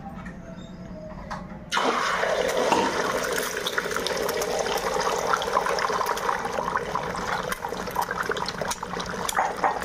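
Beaten eggs hit the hot oil in a kadai about two seconds in with a sudden loud sizzle, which keeps crackling and spitting as the omelette fries in the deep oil.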